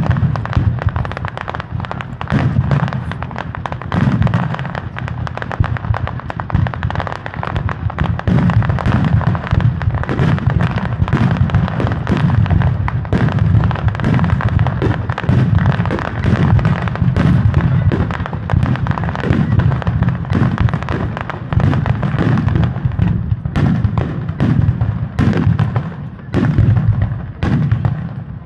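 Fireworks display: aerial shells and lower effects bursting in quick, overlapping succession, several bangs a second, deep at the bottom with sharper cracks on top.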